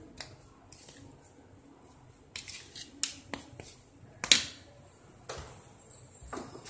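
Metal spoon scraping and tapping against a plate while mixing a spice paste: scattered light clicks and scrapes, the loudest about four seconds in.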